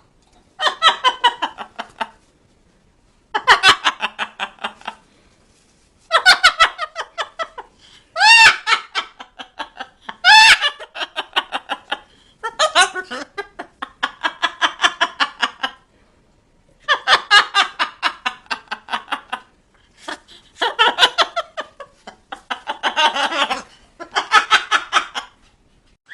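Laughter in about eleven bouts of rapid, pulsed 'ha-ha' sounds, each a second or two long, with short pauses between.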